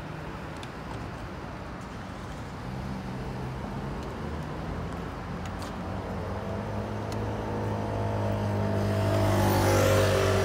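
Street traffic, with a motor vehicle's engine growing steadily louder as it approaches and is loudest near the end.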